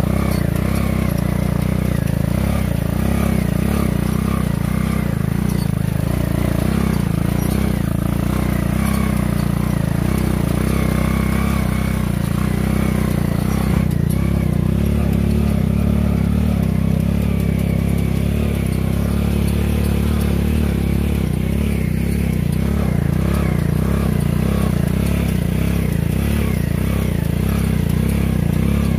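Homemade ATV's small single-cylinder motorcycle engine running steadily, a continuous low engine note.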